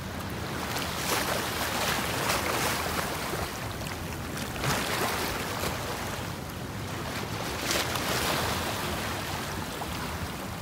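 Ocean surf washing up the beach in repeated surges every couple of seconds, with wind rumbling on the microphone.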